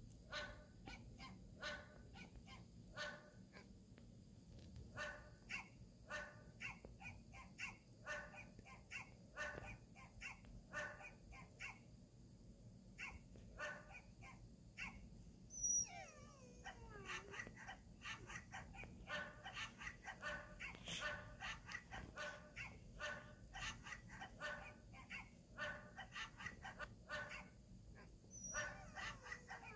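Recorded dog barks played through a smartphone's speaker from a dog bark app: many short barks, often in quick runs, with one long falling whine about halfway through.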